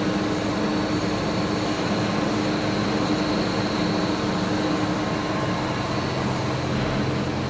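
Kaeser single-stage rotary screw air compressor with a 5 hp drive, in its sound-insulated cabinet, running steadily under load with a constant hum and a high whine. It is refilling the receiver tank after air was let out to simulate consumption.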